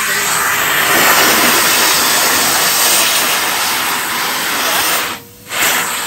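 Henry Xtra HVX 200-11 bagged cylinder vacuum cleaner running at its single speed with the crevice tool on the hose, drawing air along a carpet edge: a loud steady rushing hiss with a faint hum under it, dropping out briefly about five seconds in.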